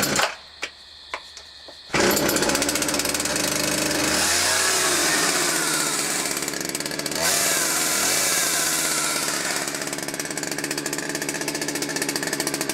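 Two-stroke chainsaw catching about two seconds in, on full choke after a priming, then running and being revved up and down a couple of times. The saw runs again now that its hardened, broken fuel lines have been replaced.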